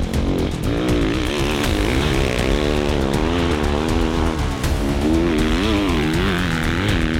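Dirt bike engine revving up and down as the rider accelerates out of loose dirt corners, with background music.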